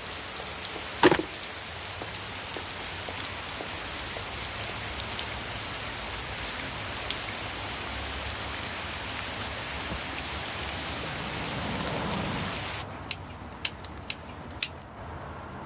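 A steady hiss, like rain, with one loud short knock about a second in. Near the end, after the hiss drops away, wall light switches click off five times in quick succession.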